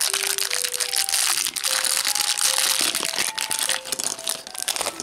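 Thin clear plastic polybag crinkling and crackling as it is pinched and pulled open by hand, over light background music with short melodic notes.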